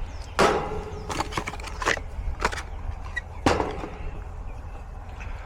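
Sharp knocks and clicks of hand tools and metal parts being handled, loudest about half a second in and again near the middle, with a run of smaller clicks between, over a steady low rumble.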